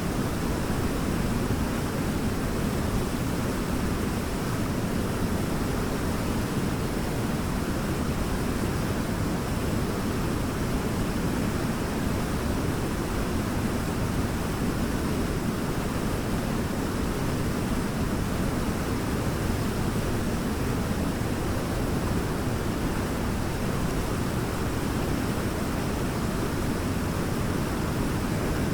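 Waterfall: a steady, unbroken rush of falling water, heaviest in the low end, with no change in level.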